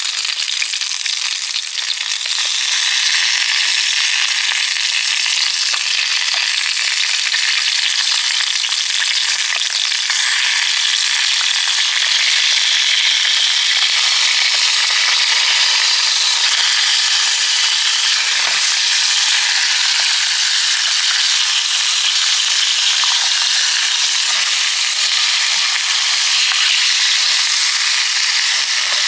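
Food frying in hot oil: a steady, loud sizzle with fine crackling.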